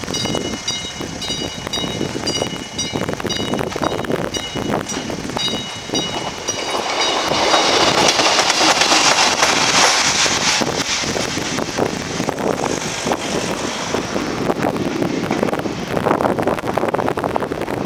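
A classic level-crossing warning bell rings in even strokes, about two or three a second. From about seven seconds in, a passenger train's rumble takes over, loudest from about eight to eleven seconds in, with scattered clicks of its wheels on the track.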